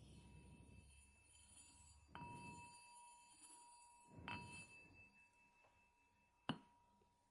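Faint bell struck twice, about two seconds apart, each strike leaving a clear high ringing tone that lingers. A soft low rumble comes before the first strike, and a sharp click near the end is the loudest sound.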